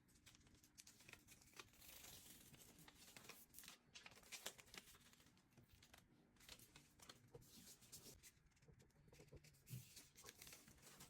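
Near silence with faint rustling and scattered small clicks and ticks, the sound of handling and movement at close range.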